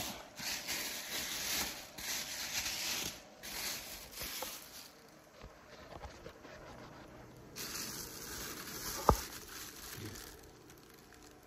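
Rustling and scraping as a car seat is handled and pulled out, coming in two stretches, with a single sharp knock about nine seconds in.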